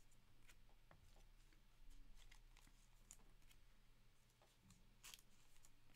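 Near silence with faint scattered ticks and rustles of trading cards being handled, and a slightly louder rustle about five seconds in.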